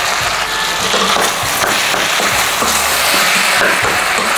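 Chopped onion, garlic, carrot, potato and tomato sizzling steadily in oil in a pot, with a few light clicks.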